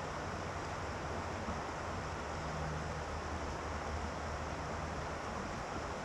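River water running over rocky shallows, a steady even rush, with a steady low rumble underneath.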